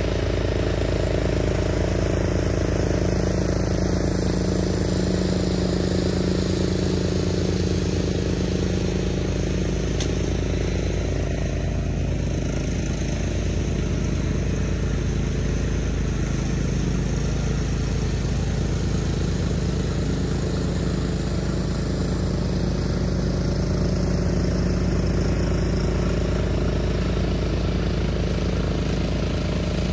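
Cub Cadet 760 ES 33-inch walk-behind mower's engine running steadily while cutting grass, a little fainter around the middle as the mower moves off and fuller again near the end as it comes back.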